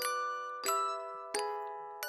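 Background music: a slow, lullaby-like melody of bell-like struck notes, like a glockenspiel or music box, three notes evenly spaced, each ringing out and fading before the next.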